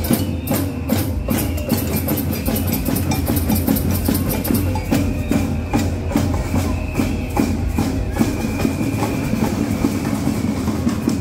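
Band music with a steady percussion beat, and a high held tone over it in the second half.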